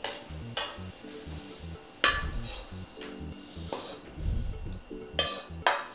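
A metal ladle scrapes and knocks against a wok as stir-fried yakisoba noodles are pushed out of it onto a plate. It makes a string of sharp clanks and scrapes about every second, the loudest about two seconds in and near the end.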